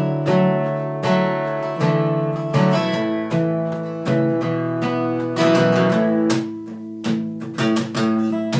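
Acoustic guitar strummed through an instrumental passage with no singing: chords struck roughly every second and left to ring, with quicker strokes in the second half.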